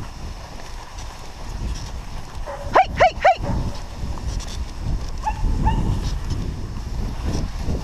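A dog barks three times in quick succession about three seconds in, then gives two fainter yips about two seconds later, over the steady low rumble of a dog sled running over snow.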